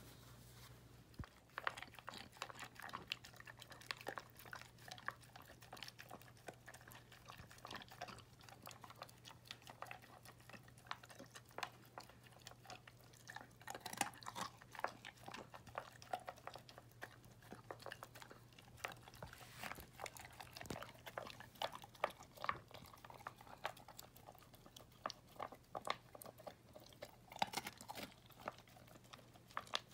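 A dog eating soaked kibble from a plastic tub: irregular wet chewing and crunching, with many quick clicks of teeth and snout against the food and the container.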